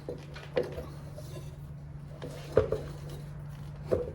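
A few light metal clinks and knocks, the loudest about two and a half seconds in, as a motorcycle's rear wheel is jiggled loose in the swingarm with its axle spacers out, over a steady low hum.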